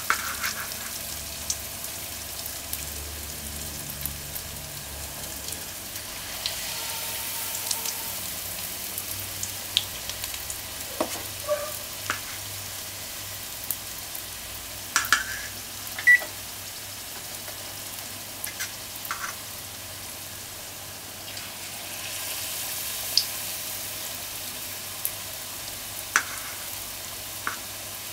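Saltfish fritter batter frying in hot oil in an aluminium pot: a steady sizzling hiss with scattered sharp pops and clicks. The sizzle swells twice, about a quarter of the way in and again near the end.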